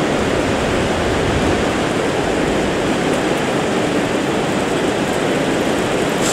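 Steady, even rush of a river flowing over rocks, a continuous loud water noise with no breaks.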